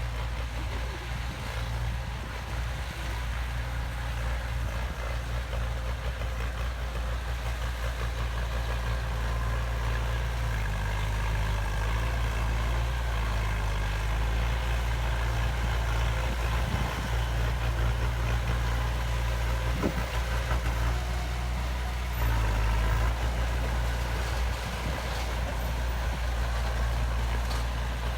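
Heavy construction machine's diesel engine running with a steady deep rumble. Its note shifts slightly about ten seconds in and again a little past twenty seconds.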